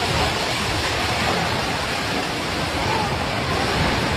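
A steady rushing noise with faint voices of a crowd in it.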